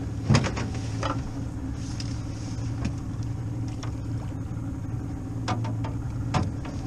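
Boat motor idling with a steady low hum, and a few sharp knocks and clunks on the aluminium boat, two just after the start, one about a second in and two near the end.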